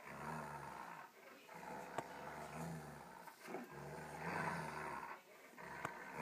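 A Saluki growling through a toy held in its mouth during tug-of-war: a play growl, rasping and chainsaw-like, in four long bouts with short breaks for breath between them.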